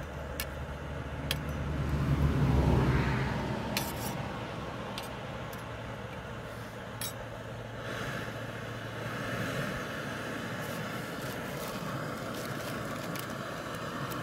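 Cooking pot and utensils clinking and scraping now and then over a steady low rumble, which swells for a moment about two to three seconds in.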